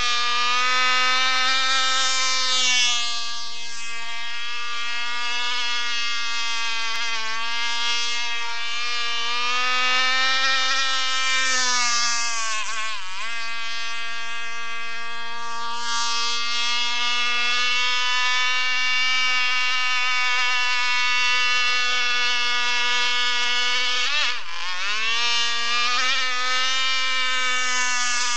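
Zenoah G260 26cc two-stroke single-cylinder engine of a radio-controlled gas boat, buzzing steadily at high revs. The pitch drops sharply and climbs back twice, about 13 seconds in and about 24 seconds in.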